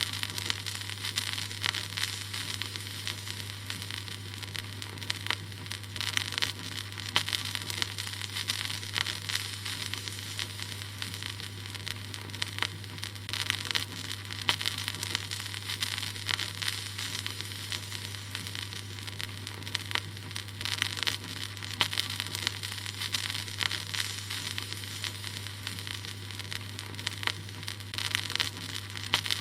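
Record player surface noise: a steady hiss peppered with scattered crackles and pops from the stylus on vinyl, over a low steady hum.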